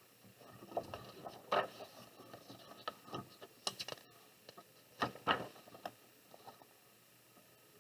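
Soft, irregular rustling and light taps of a picture book being opened and its pages handled before the reading starts.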